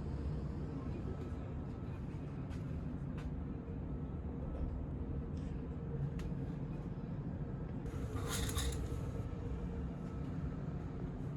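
Steady low hum of a ferry's onboard machinery and ventilation inside a passenger cabin, with a few faint clicks and a brief rustling hiss about eight seconds in.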